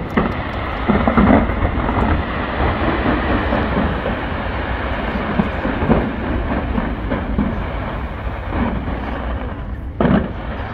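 Dense fireworks barrage fired from the Taipei 101 skyscraper: a continuous rumbling crackle of many shells, with heavier bangs about a second in, around six seconds and near the end.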